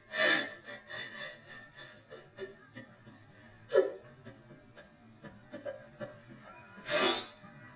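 A woman crying and sobbing, a sound effect played back pitch-shifted: three sharp sobbing breaths about three seconds apart, with quieter whimpering between them.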